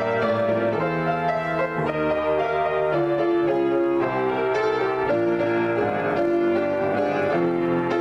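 Solo piano played as an improvisation: held chords under a moving line of notes, changing about every second, at an even loudness.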